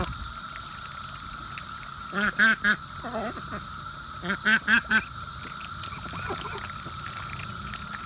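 Ducks quacking in short runs: three quick quacks about two seconds in and four more about four and a half seconds in. Underneath runs a steady high-pitched drone of cicadas.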